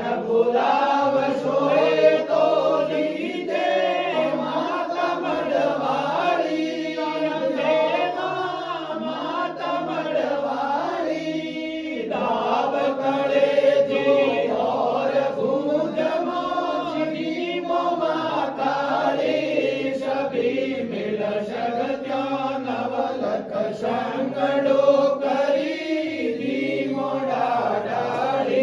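Several voices chanting a Hindu aarti hymn together without pause.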